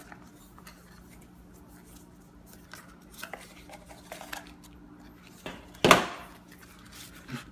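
Small cardboard accessory box being handled and slid open, with soft scuffs and light taps, then one sharp knock about six seconds in as a piece of the box is put down on the desk.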